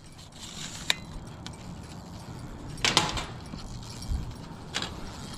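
Small fishing-rod bells jingling in three short bursts, about a second, three seconds and five seconds in, as a hooked carp pulls on the line.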